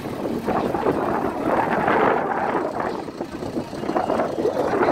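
Heavy diesel engine running and revving, swelling louder about two seconds in, with some wind noise on the microphone.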